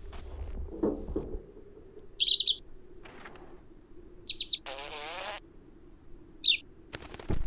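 Small cartoon bird chirping in three short bursts about two seconds apart. A brief wavering noise comes about five seconds in.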